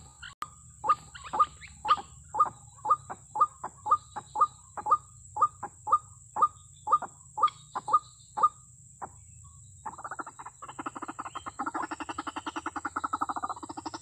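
White-breasted waterhen calling: a repeated 'kru-ak' note about twice a second, stopping about nine seconds in, then from about ten seconds a fast, continuous rattling croak.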